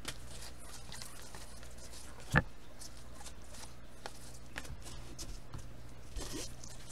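Trading cards being handled and sorted by hand: faint sliding and tapping of card on card, with one sharp tap about two and a half seconds in, over a steady low hum.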